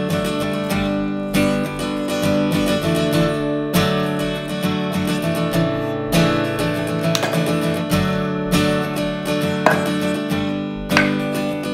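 Background music: a strummed acoustic guitar playing a steady, evenly paced rhythm.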